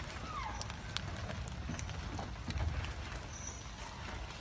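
Outdoor ambience in light rain: a steady low rumble with scattered faint taps, and a short falling bird-like call about half a second in.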